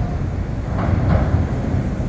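CTA elevated ('L') train running over the Lake Street bridge: a steady, low rail rumble.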